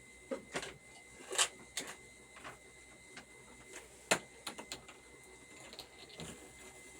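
A series of irregular light clicks and knocks from handling cooking things, about a dozen in all, the sharpest a little over a second in and about four seconds in.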